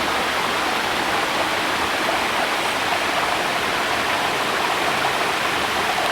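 Waterfall pouring into a mountain creek: a steady, even rush of falling water.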